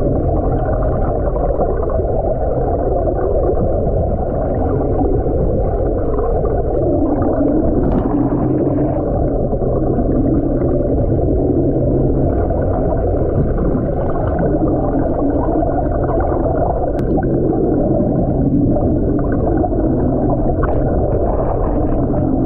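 Yamaha 242X jet boat's engines and jet drive heard underwater: a steady muffled rush of water with a low drone beneath it.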